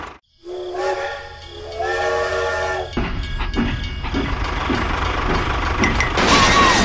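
Toy steam locomotive's whistle sounding two blasts of about a second each, followed by its running rumble with scattered ticks and a hiss near the end.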